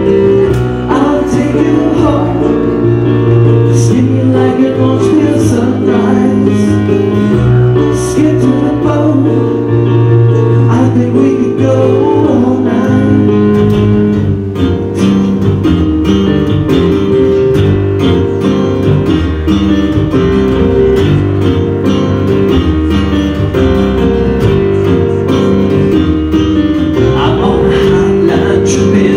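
Live acoustic band music: strummed acoustic guitars with keyboard, and a male voice singing in places, near the start and again near the end.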